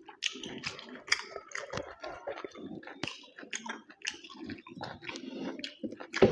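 Close-miked eating sounds: chewing mutton curry with wet mouth smacks, in many irregular short clicks.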